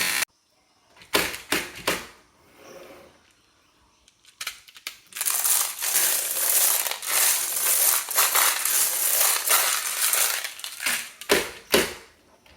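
Small toy vehicles rolling and clattering down a wooden HABA slope track. A few sharp clicks come first, then a continuous rattle for about six seconds, and two loud knocks near the end.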